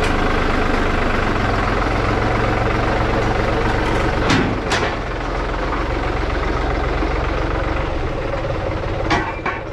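New Holland compact tractor's diesel engine running steadily at close range, with a few sharp knocks about four and a half seconds in and again near the end as the loader's pallet forks pull out from under the firewood pallet on the trailer.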